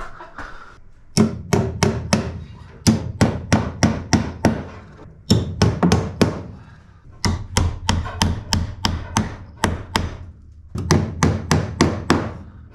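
A hammer striking repeatedly in quick runs of about four to five blows a second, five runs with short pauses between them.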